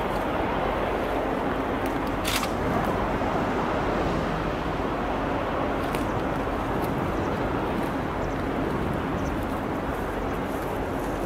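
Steady, even rumble of a distant DE15 diesel-hydraulic locomotive running away along the line, with a faint hum under it. A short sharp high sound comes about two seconds in.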